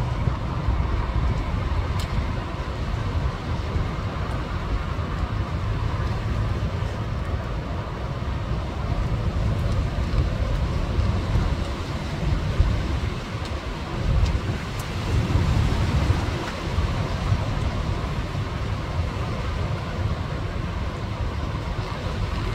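Strong storm wind gusting over the microphone: a deep, uneven rumble with a light hiss above it, swelling in a stronger gust a little past the middle.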